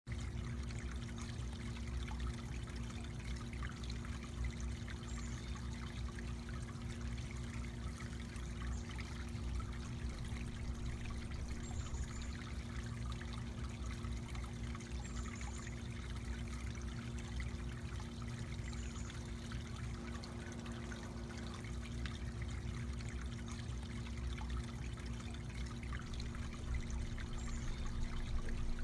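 Garden pond water feature with water trickling steadily over rocks, under a faint steady low hum. A faint short high chirp comes every few seconds.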